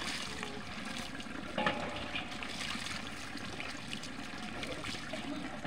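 Water poured from a plastic dipper splashing and trickling over a wet dog's coat onto the ground, with a brief knock about one and a half seconds in.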